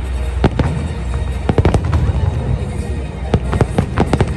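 Aerial fireworks going off: irregular clusters of sharp cracks and bangs over a steady low rumble.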